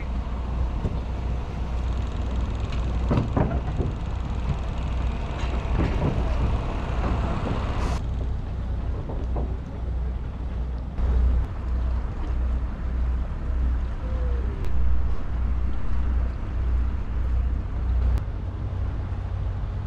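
Small car ferry's engine running with a steady, low, pulsing drone under a hiss of wind and water, with a single knock about eight seconds in.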